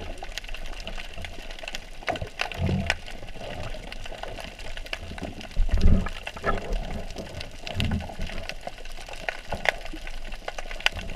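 Underwater ambience picked up by a submerged camera: a constant crackle of sharp clicks, with low muffled whooshes of moving water every two to three seconds, the strongest about six seconds in.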